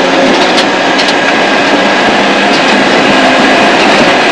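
Mitsubishi Lancer Evolution 6 rally car's turbocharged four-cylinder engine running flat out at steady high revs, heard from inside the cabin. Gravel and tyre noise from the loose road surface rides under it.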